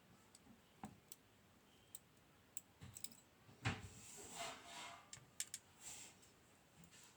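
Scattered faint clicks and taps of small metal lock parts and tools being handled while a pin-tumbler padlock is taken apart. About three and a half seconds in there is a louder knock, followed by a couple of seconds of scraping rattle.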